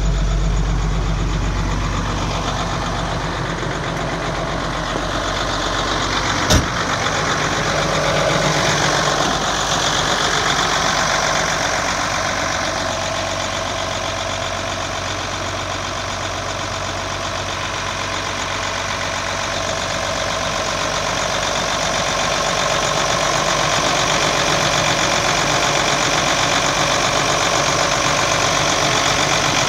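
1993 Ford L8000 dump truck's inline-six diesel idling steadily, heard first from inside the cab and then at the open engine bay. A single sharp knock about six and a half seconds in.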